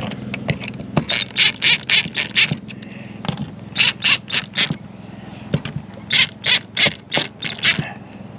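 Cordless drill driving the screws of a plastic RV shore-power inlet in short trigger pulses: three runs of quick, high-pitched bursts.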